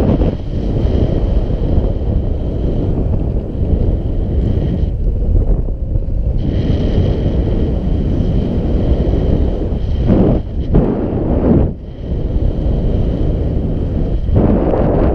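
Wind from paraglider flight buffeting the microphone: a loud, gusty rush, with a few stronger gusts toward the end.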